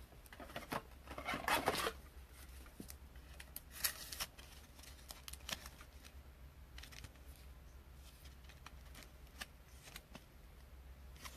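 Faint rustling and small clicks of trading cards being handled, scattered and irregular, with a brief denser rustle about a second in and another around four seconds in.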